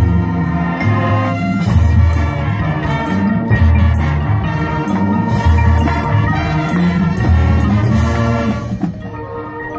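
High school marching band playing its field show: brass and winds over drums, with the front ensemble's mallet keyboards and timpani. The music gets softer near the end.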